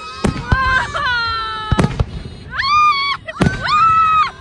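Fireworks display: about four sharp bangs from bursting aerial shells. Between them come loud, high-pitched wails that rise, hold for about half a second, then drop off.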